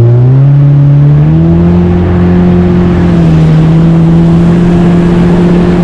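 Yamaha FX four-stroke personal watercraft engine accelerating, its pitch rising over the first second and a half, then running steady at high revs with wind and water rushing.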